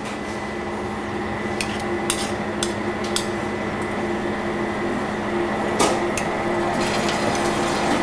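A metal spoon clinking sharply against a stainless steel bowl a few times while stirring a thick batter, over a steady mechanical hum.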